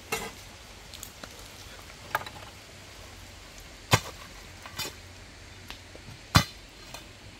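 About five sharp knocks or clacks at uneven intervals, the loudest two about four and six seconds in, over a faint steady background.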